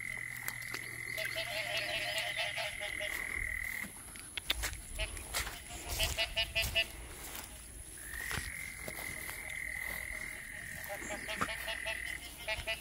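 Frogs calling in rain-flooded grass: a chorus of rapid, pulsed croaks, with a steady high trill held for about four seconds at the start and again from about eight seconds in. A few soft clicks and knocks come in the middle.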